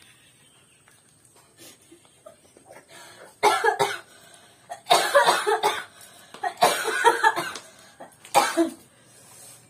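A person coughing hard in four bouts, each made of a few quick coughs, the first starting a few seconds in and the last near the end.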